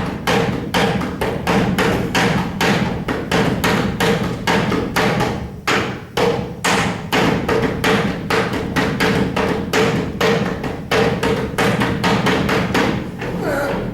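Fast rhythmic percussion of glasses, cutlery and knocks on a table, several strikes a second, with a ringing tone carrying through; it stops shortly before the end.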